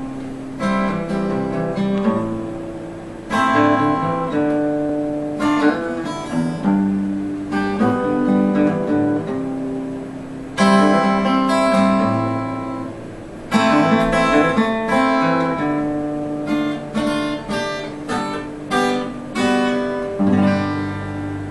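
Solo acoustic guitar playing an instrumental introduction: full chords strummed every two or three seconds and left to ring and fade, then quicker picked and strummed notes, several a second, in the last few seconds.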